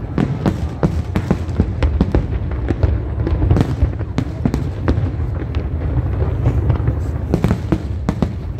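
Fireworks display: aerial shells bursting in a dense, rapid barrage of sharp booms and cracks over a steady low rumble.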